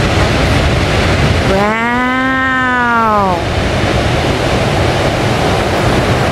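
Ocean surf breaking and washing onto the beach as a steady rushing noise, with a low rumble underneath.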